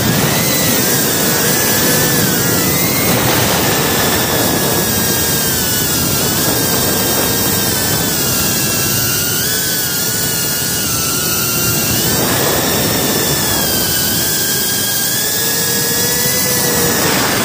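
FPV quadcopter's motors and propellers whining, the pitch wavering up and down as the throttle changes, over a steady rushing noise.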